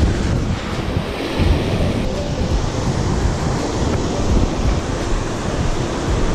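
Ocean surf washing onto a sandy beach, with wind buffeting the microphone.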